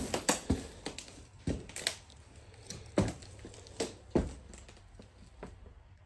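Irregular footsteps with scattered knocks and crunches, about one every half second to a second, fading after about four and a half seconds.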